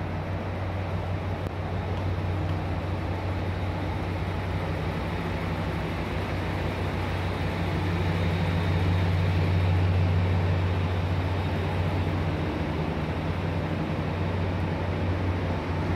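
JR Kyushu 885 series electric train standing at a station platform, its onboard equipment giving a steady low hum that swells slightly about halfway through.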